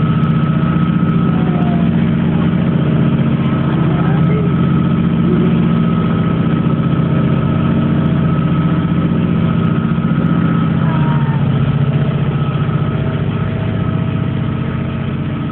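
Steady, low engine drone with a constant high whine above it, heard from inside a car's cabin; it eases slightly near the end.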